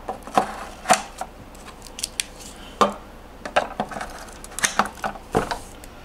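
Sapphire Pulse RX 6600 graphics cards being handled and pressed into the PCIe slots of a mining motherboard: a string of irregular sharp clicks and knocks of hard plastic and metal.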